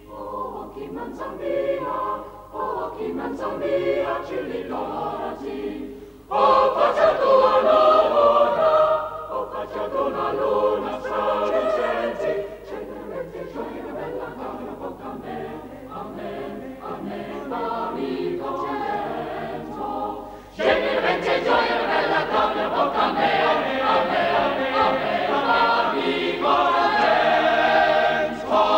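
Boys' choir singing unaccompanied. The singing jumps suddenly louder about six seconds in and again about two-thirds of the way through.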